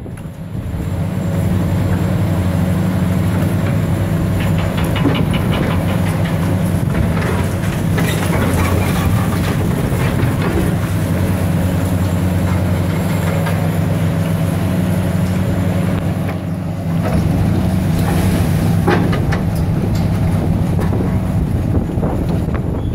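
Diesel engines of high-reach demolition excavators running steadily, with the cracking and crunching of concrete and brick being broken by the excavators' jaws and debris falling, in spells several seconds in and again later on.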